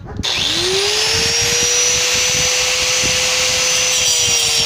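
Black & Decker 820 W angle grinder starting up: its motor spins up with a rising whine about a quarter second in, then runs at steady full speed, the pitch sagging briefly near the end.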